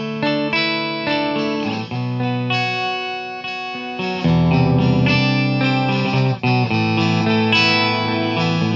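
Electric guitar played through an Electro-Harmonix Intelligent Harmony Machine pedal set to perfect fifth plus octave-up harmony, with the mix leaning toward the dry signal. Chords and notes ring out and change every second or so, with the added fifth and octave layered above them.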